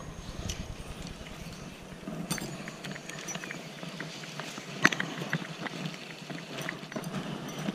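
Scattered light clicks, knocks and rustles of an angler moving along a bank while handling a fly rod and reel, over a low rumble that drops away after two or three seconds.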